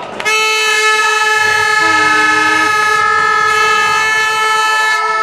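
Air horn blown in one long, steady note for about five seconds, with a second, lower horn sounding briefly about two seconds in.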